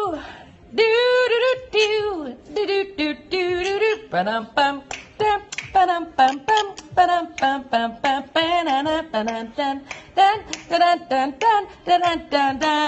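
A parrot singing a wordless tune: a few longer held notes, then a quicker run of short pitched notes, several a second.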